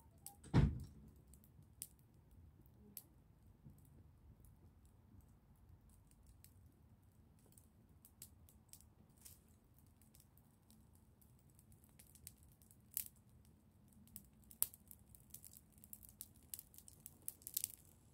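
Fire of dry twigs and sticks crackling faintly, with sharp snaps scattered through and coming thicker near the end. One louder thump about half a second in.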